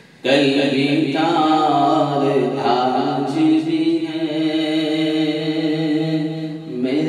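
Man singing a naat, an Urdu devotional poem, in a slow chanting style with long held notes over a steady low drone. The voice comes in just after the start and breaks off briefly near the end.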